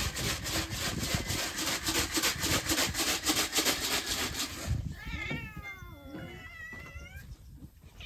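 Cat meowing a few times in the second half, each call rising and falling in pitch. Before that, a loud buzz pulsing about five times a second cuts off suddenly.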